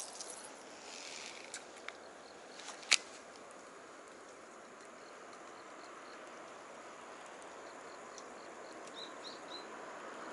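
Quiet outdoor ambience: a faint steady hiss with a few sharp clicks in the first three seconds, and faint short high chirps repeating through the second half.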